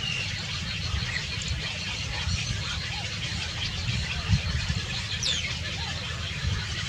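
Small birds chirping, with one high call that slides steeply downward about five seconds in, over a steady low rumble.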